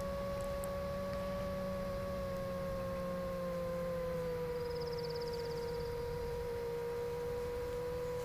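Steady whine of an FPV quadcopter's motors and propellers in cruise, its pitch dipping slightly about halfway through.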